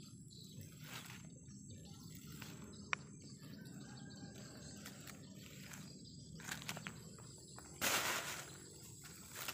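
Low outdoor background noise with brief rustles and handling sounds; about eight seconds in, a louder rustle of leaves and undergrowth brushing past.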